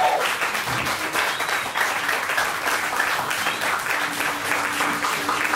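Audience applauding, with music starting under the clapping near the end.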